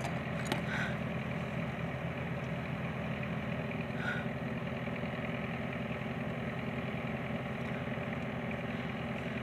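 Car engine idling, a steady low hum heard inside the car's cabin.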